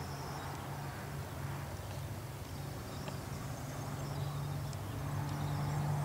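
Outdoor ambience: a steady low mechanical hum under faint, scattered high bird chirps.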